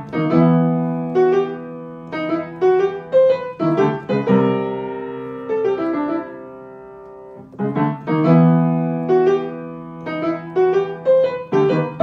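Solo piano music: a light melody of struck notes over held chords, with a pause in the middle where the notes ring out and fade.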